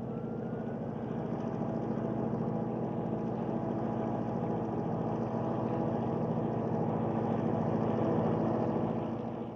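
Fairbanks-Morse H16-44 diesel locomotive, with its opposed-piston two-stroke engine, running steadily under load as it shoves a dead Big Boy steam locomotive. It grows slowly louder as the train comes closer, then drops away near the end.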